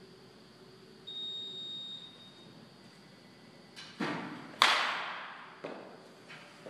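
Baseball bat cracking into a pitched ball, a single sharp loud hit that echoes around the hall, just after a duller thud. A short high beep sounds about a second in.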